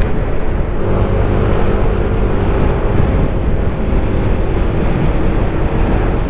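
Yamaha Aerox S 155 scooter riding at a steady cruise, its single-cylinder engine giving a steady hum under heavy wind rumble on the microphone.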